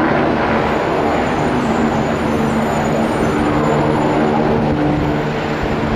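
MBB Bo 105 helicopter flying overhead, its twin turboshaft engines and rotors giving a loud, steady drone with a low hum held through it.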